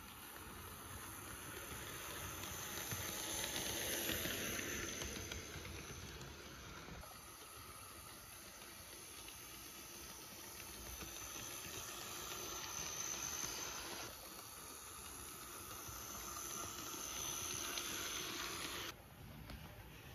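On30-scale model steam locomotive running on plastic-roadbed snap track: the whir of its small electric motor and the rattle of its wheels on the rails. The sound swells and fades as the engine passes close, loudest about four seconds in and again twice later, then drops abruptly near the end.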